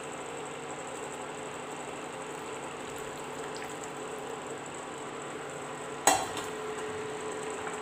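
Hot tea being poured from the pan through a tea strainer into a glass: a steady trickling hiss, then one sharp clink of kitchenware about six seconds in.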